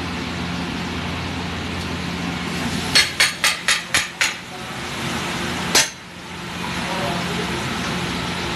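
Metal spatula striking the big iron tawa of a pav bhaji griddle: six quick clanks, about four a second, then one more sharp strike a moment later, over a steady din of the stall.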